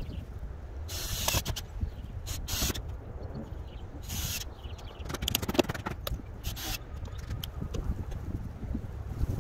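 Wind rumbling on the microphone, with several short hissing bursts of noise.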